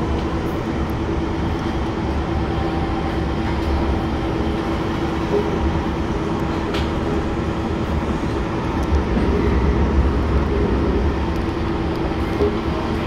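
SMRT C151 metro train running at a steady speed, heard from inside the passenger car: a constant rumble of wheels on the track with a steady hum.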